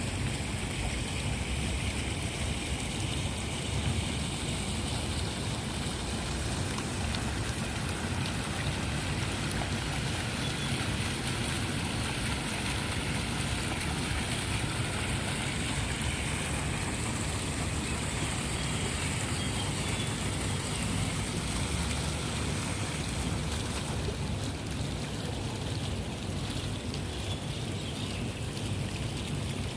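Water flowing steadily in a continuous rushing hiss.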